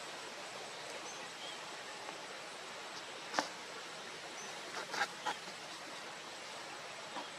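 Steady outdoor background hiss with a few brief sharp sounds: the loudest about three and a half seconds in, a cluster of three around five seconds in, and one near the end. Faint short high bird chirps sound now and then.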